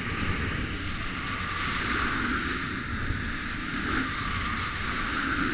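Skis running fast over snow, with a steady rush of wind on the camera's microphone.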